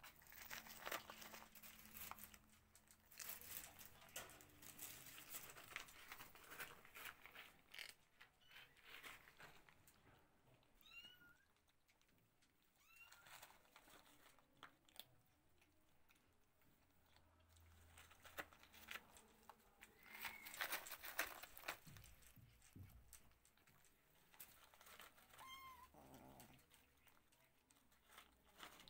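A kitten mewing faintly about four times, each a short high mew that rises and falls in pitch, among scattered soft clicks and crunches of a kitten eating dry kibble.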